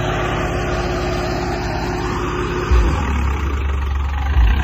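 Tractor engine running steadily, with a steady hum that stops near the middle and then repeated surges of deep low rumble.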